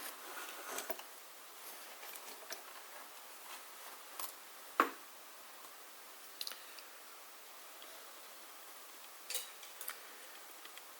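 Faint, scattered clicks and taps from handling fabric and sewing-machine parts, with no machine stitching; one sharper click comes about five seconds in.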